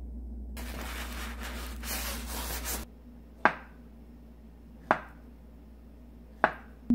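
A kitchen knife on a cutting board: a scraping, rubbing noise for about two seconds as black olives are sliced, then three sharp taps about a second and a half apart as the blade cuts through avocado and strikes the board.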